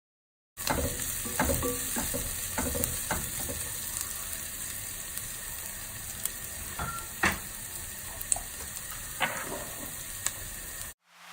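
Food frying in hot oil in a pan, sizzling steadily, with scattered sharp clicks and knocks as it is stirred. The sizzle starts suddenly about half a second in and cuts off suddenly near the end.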